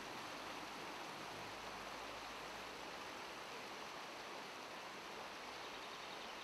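Shallow mountain torrent rushing steadily over stones and gravel.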